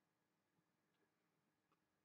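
Near silence: faint room tone with a few tiny clicks.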